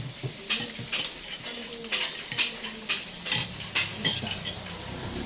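Cutlery and dishes clinking during a meal: about eight short, sharp knocks and clinks of utensils against plates, spread unevenly through the stretch.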